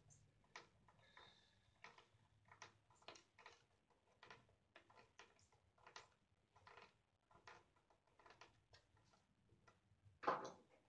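Faint, irregular clicks of a hand screwdriver turning small screws down through antenna insulators, about two or three clicks a second. A single louder bump comes near the end.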